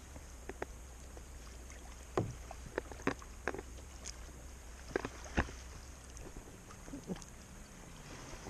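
Kayak paddling on calm water: irregular light knocks and splashes from the paddle, over a low rumble that fades out about six seconds in.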